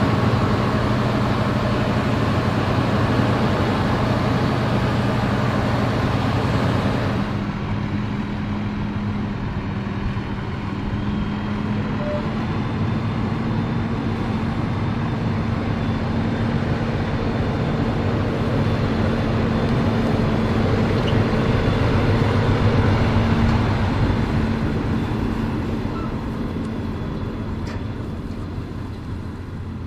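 New Holland combine harvester running steadily with a steady low hum. Its higher-pitched noise drops away abruptly about seven seconds in, and the sound eases off slightly near the end.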